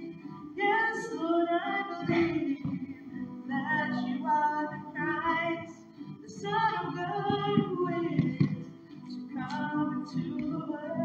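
A woman singing a slow worship song into a microphone, phrase by phrase with short pauses between, over a steady low sustained accompaniment.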